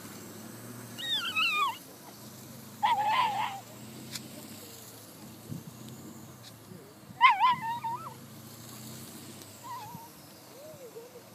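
Dog whining and yelping in high-pitched, wavering cries: three loud ones about one, three and seven seconds in, and a couple of fainter ones near the end.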